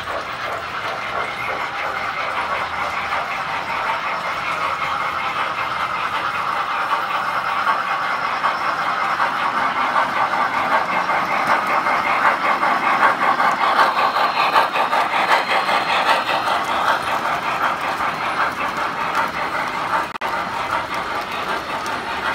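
Lionel Standard Gauge tinplate toy trains running on three-rail track: a steady rapid metallic rattle and whir of wheels and motors. It grows louder as a locomotive passes close by, about halfway through, then eases off.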